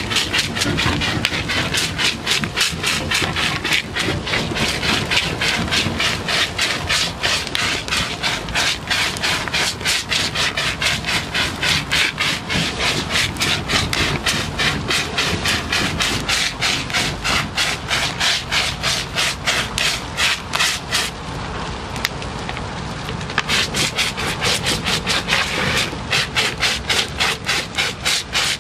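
Intelagard Viper backpack fire extinguisher spraying extinguishing solution onto burning tyres: a loud, even rasping pulse, about four strokes a second, breaking off for about two seconds near the end before resuming.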